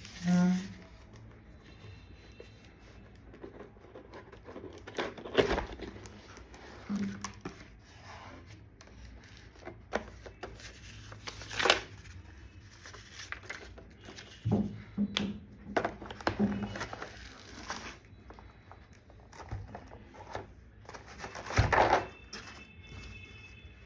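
Packaging of a mechanical keyboard being opened and handled: cardboard and plastic rustling and crinkling, with scattered knocks and bumps at irregular moments.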